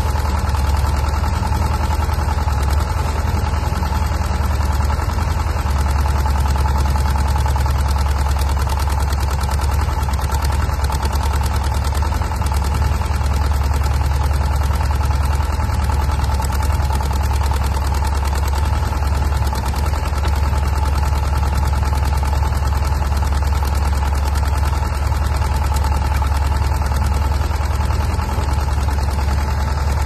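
Homemade tracked excavator running steadily as its arm and bucket dig soil: a constant low drone with a steady higher whine.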